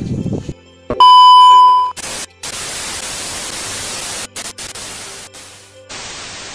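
Video transition effect in two parts. About a second in, a loud, steady TV test-pattern beep near 1 kHz lasts just under a second. Then TV static hiss follows, cutting out briefly a few times and getting quieter near the end.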